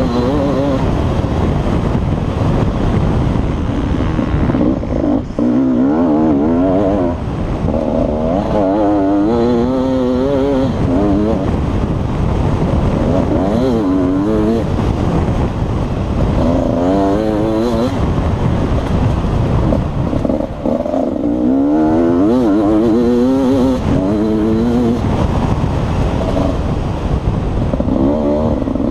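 Beta RR 300 two-stroke enduro engine revving hard under full throttle, its pitch climbing and falling over and over through the gear changes, with a few brief drops as the throttle is closed. Heard from a helmet camera on the rider.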